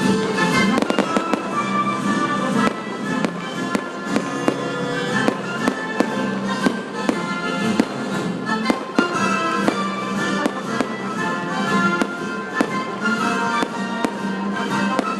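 Fireworks going off in rapid succession, many sharp bangs and crackles scattered throughout, over music playing steadily underneath.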